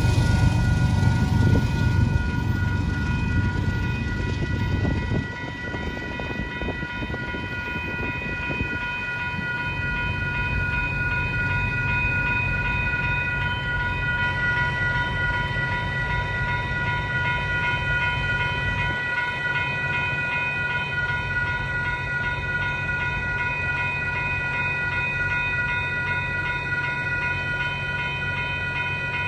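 Railroad grade-crossing warning bells ringing steadily. Under them, the tail of a freight train rumbles away over the rails and fades out about five seconds in.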